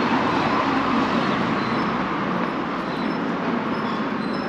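A car driving past along the street, its engine and tyre noise steady and slowly fading.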